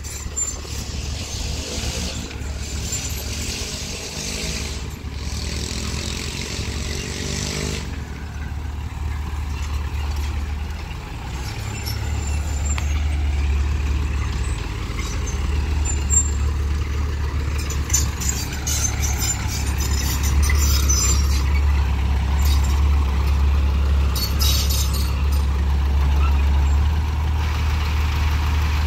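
Small diesel dump truck's engine running as the truck drives slowly and turns while towing a flatbed trailer. The engine note shifts during the first several seconds, then settles into a steady low running sound, with a few short high-pitched squeaks or hisses later on.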